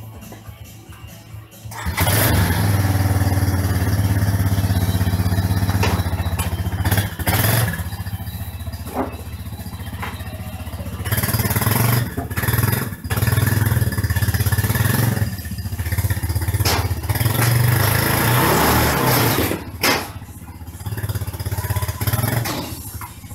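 Yamaha ATV engine catching about two seconds in, then running with the throttle rising and falling as the quad is ridden up a ramp onto a trailer, and dropping back near the end.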